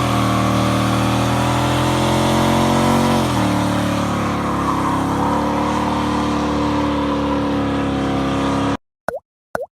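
A vehicle engine running at steady speed, its pitch dropping about three seconds in, then cutting off abruptly near the end, followed by a few short chirps.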